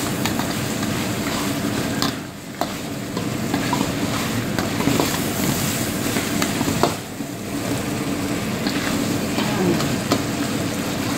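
Lamb and tomato gravy sizzling in a kadhai while a metal ladle stirs it, with occasional clicks and scrapes of the ladle against the pan. A steady low hum runs underneath, and the sizzle dips briefly twice.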